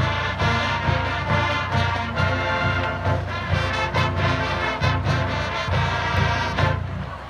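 Marching band playing live: sustained brass chords over a steady, regular low drum beat, easing off briefly near the end.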